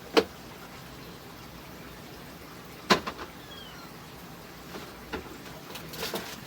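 Food being packed into a refrigerator's plastic drawers and compartments: two sharp knocks about three seconds apart, then lighter clicks near the end.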